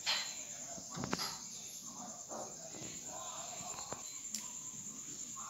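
Crickets chirring steadily in the background. A few brief knocks and rustles from handling come near the start, about a second in and once after four seconds.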